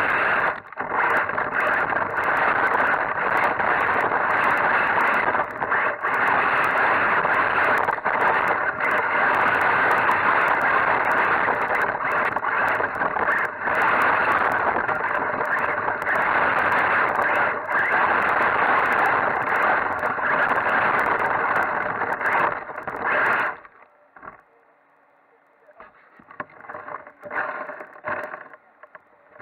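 RC buggy driving hard over dirt, heard from the camera riding on it: a loud, steady rush of drivetrain and tyres throwing dirt, with many sharp clicks and knocks. About 23 seconds in it drops suddenly to much quieter, with only scattered bumps and rattles.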